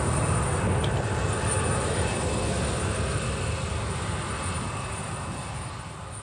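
Steady outdoor rushing noise, heaviest in the low end, that slowly fades out.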